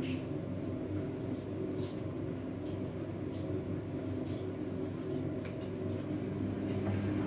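Fagor front-loading washing machine in a rinse cycle: a steady motor hum as the drum turns the wet, sudsy laundry and water sloshes, with a few brief clicks scattered through.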